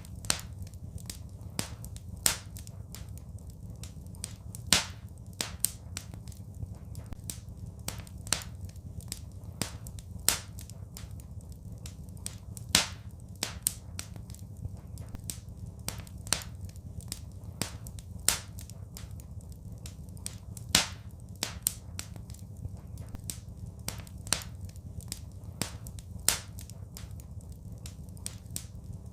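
Wood fire crackling in a fireplace: a steady stream of small sharp snaps, with a louder pop every couple of seconds, over a low steady rumble.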